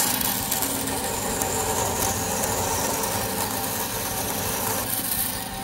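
Vertical band saw cutting through 1.5-inch aluminum angle, a steady running and cutting noise that eases off near the end.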